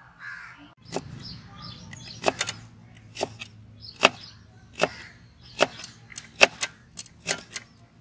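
Large kitchen knife chopping a carrot into thin strips on a wooden block: sharp chops start about a second in and come roughly once every 0.8 s, some in quick pairs.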